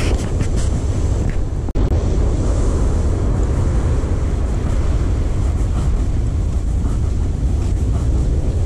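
Steady low rumble of wind buffeting the microphone, mixed with the wash of surf breaking on the beach. The sound cuts out for an instant a little under two seconds in.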